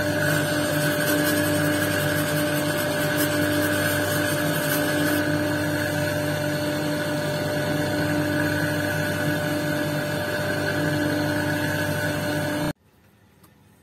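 Lapidary wheel machine running with a steady motor hum. For the first few seconds a quartz stone on a dop stick is held against the spinning wheel, adding a fine gritty scratching; after that the machine runs on alone. The sound cuts off abruptly near the end.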